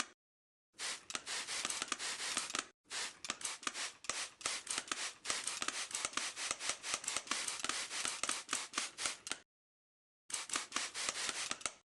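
Glass being wiped by hand, with quick rubbing strokes at several a second. The strokes come in three runs, broken by short pauses about three seconds in and again near ten seconds.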